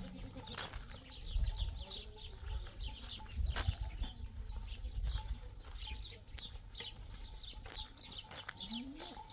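Outdoor farmyard sound of a goat herd on the move: small birds chirp over and over above a low rumble, and a short rising animal call comes near the end.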